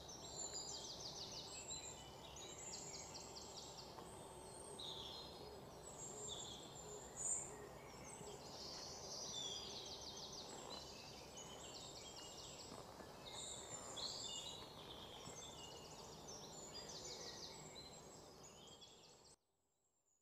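Birds chirping in repeated short high trills over a steady low background hiss, cutting off suddenly near the end.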